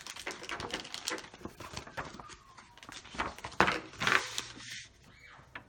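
Plastic Play-Doh tubs and shape cutters being handled: irregular clicks, taps and rustling, with a louder rustle of packaging about four seconds in.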